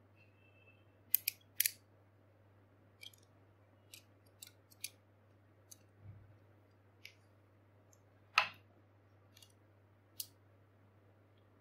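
Beyblade spinning-top parts clicking and snapping as they are twisted apart and fitted by hand: about a dozen short sharp clicks at uneven intervals, the loudest about eight seconds in, over a low steady hum.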